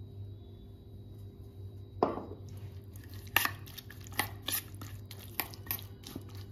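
Metal spoon knocking once against a stainless steel bowl about two seconds in, then clinking and scraping around it several times a second while curd, cucumber and onion are mixed into raita.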